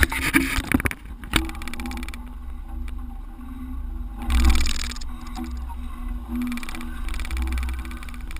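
Off-road vehicle driving along a rocky creek bed trail: the engine runs steadily under a low rumble. Several sharp knocks come in the first second and a half, and a louder rush comes about four seconds in.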